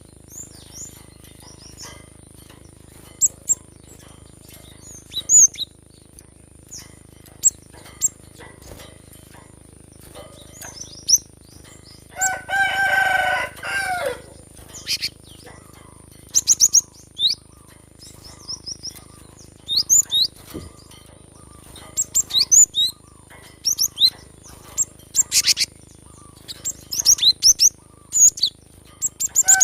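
Cinereous tit (gelatik batu) calls: short, high chirps and quick sweeping notes, repeated in scattered bursts. About twelve seconds in, a rooster crows once for about two seconds.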